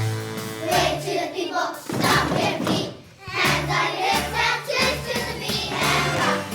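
Children's choir singing a Christmas song over backing music with a pulsing bass line, with a brief drop in level about three seconds in.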